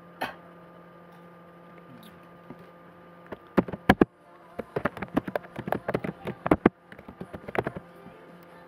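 Computer keyboard typing: quick, irregular runs of keystrokes that start about three seconds in, over a steady electrical hum.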